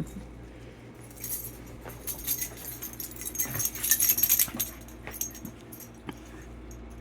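A dog's collar tags jingling in quick bursts as the dog moves about, with small clicks, from about one to five seconds in.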